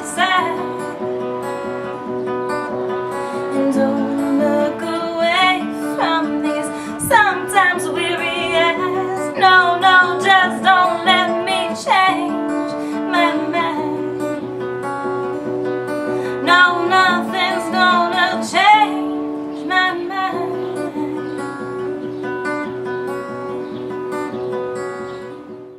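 Yamaha acoustic guitar with a capo, picked and strummed in the song's instrumental outro, with a few wordless sung phrases over it. The last chord fades out at the very end.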